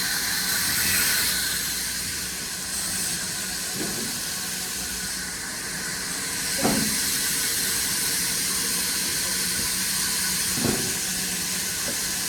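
Steady hissing machine noise, broken by a short knock a little past halfway and another near the end.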